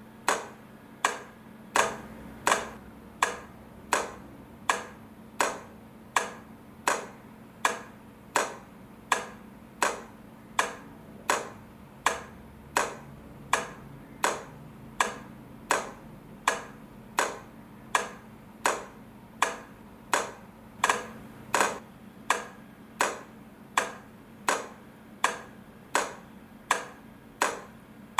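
Railway crossing light flasher clicking in a steady, even rhythm, about one and a half clicks a second, over a faint low hum.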